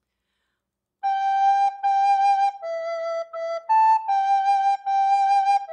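Plastic soprano recorder playing a slow, clean melody on three notes, G, A and E: G, G, E, E, A, G, G. It starts after about a second of silence, with each note held about half a second and short breaks between tongued notes.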